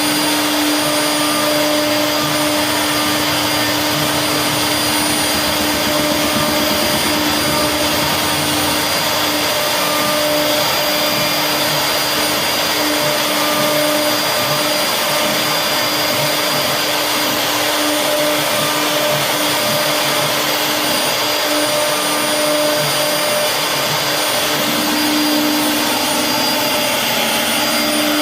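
CNC router spindle running and cutting a carved design into a wooden bed panel: a steady whine over a continuous hiss of cutting, holding even throughout.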